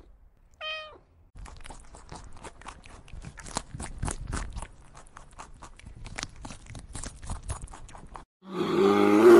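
A domestic tabby cat meows once, a short call falling in pitch, about a second in. Then for several seconds comes a quick, irregular run of small clicks and crunches, typical of a rabbit chewing. Near the end a loud, deep growl begins, a brown bear's.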